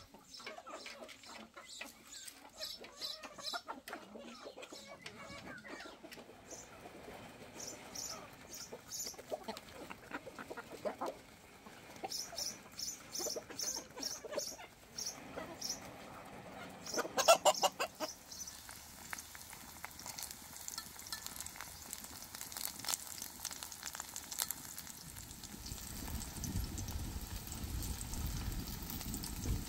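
Chickens clucking on and off, with short quick high-pitched chirps in two runs, a louder burst of calls about seventeen seconds in, and a low rumble in the last few seconds.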